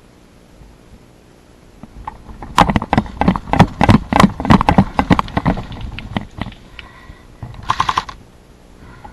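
Airsoft gun firing: a quick string of shots for about four seconds, a pause, then a short rapid burst near the end.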